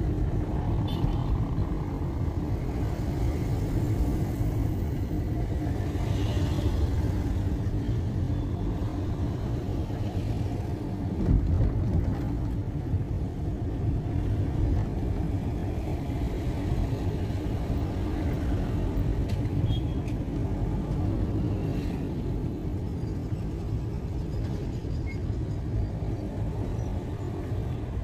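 Steady low rumble of a road vehicle's engine and tyres in motion, with a brief louder bump about eleven seconds in.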